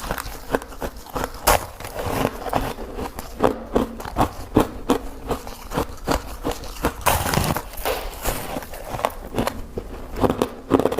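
A person biting and crunching through ice close to the microphone: many sharp, irregular crunches, with a denser stretch of crunching about seven seconds in.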